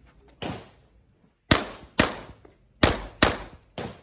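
Pistol-caliber carbine firing five shots in quick succession, roughly two pairs and a single, each a sharp crack with a short ringing tail. A fainter crack comes about half a second in.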